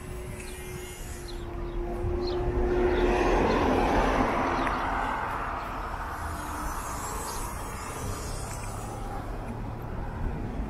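A vehicle drives past on the street, its tyre and engine noise swelling to a peak about four seconds in and then fading away.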